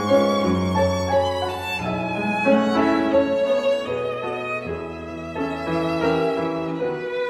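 Background music led by a violin playing a melody with vibrato over lower sustained notes.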